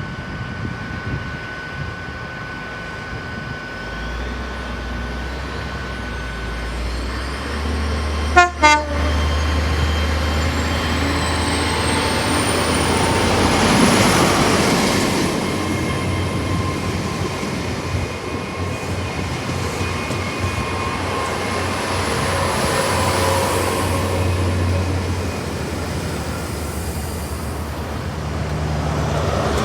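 HST diesel train approaching and passing with a low engine drone building up. A sudden loud blast comes about eight seconds in, and the train's horn is sounded.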